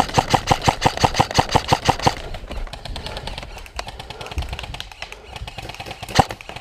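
Airsoft gun firing a rapid string of shots, about eight a second, for roughly two seconds, then a single shot near the end.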